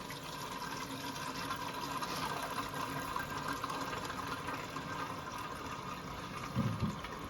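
Toilet tank refilling after a flush: a steady hiss of water running in through the fill valve, a slow fill.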